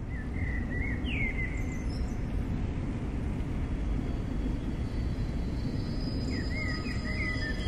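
Outdoor countryside ambience: a steady low rumbling noise bed, with a bird chirping briefly twice, once near the start and again about six seconds in.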